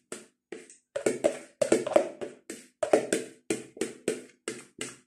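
A spoon knocking against a plastic mixing bowl as a soft casserole mixture is scraped out of it: quick repeated knocks, about three to four a second.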